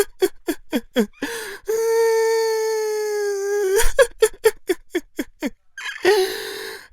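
A man crying hard: a run of quick gasping sobs, then a long drawn-out wail that sags slightly in pitch, then more quick sobs and another wail starting near the end.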